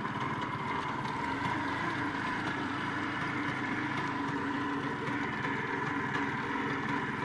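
Engine of a small vehicle running steadily, heard from inside its cab as it drives slowly, with a steady whine running through it.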